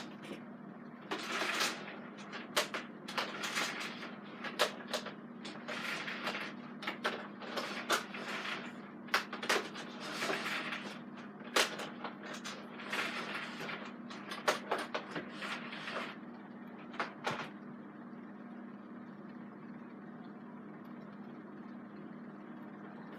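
Irregular knocks, clicks and rustling of a plastic vacuum cleaner being handled, over a steady low hum; the knocking stops about three-quarters of the way through.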